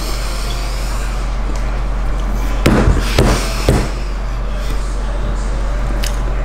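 Three quick knocks close together a little before halfway through, over a steady low hum.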